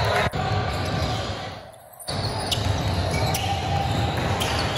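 Basketball bouncing on a gym court amid the general noise of a game, with a few short squeaks; the sound drops away briefly about two seconds in.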